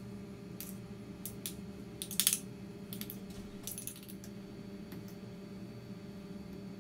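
Metal spoon and fork clinking and tapping against the bowl and the metal pie pan as mashed potato is spooned on and spread: scattered light ticks, with a quick cluster of clinks about two seconds in and another shortly before four seconds, over a low steady hum.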